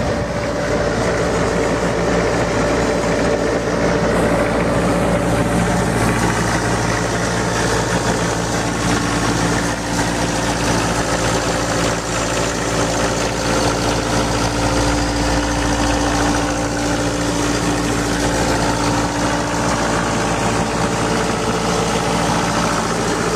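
Bobcat S185 skid steer's diesel engine idling steadily, with no change in speed.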